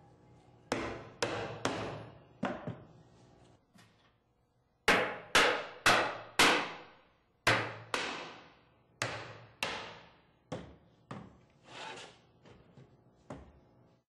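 Mallet knocking doweled cabinet panels together: about twenty sharp knocks in quick groups of two to five, each ringing out briefly, with a pause of about a second a third of the way in.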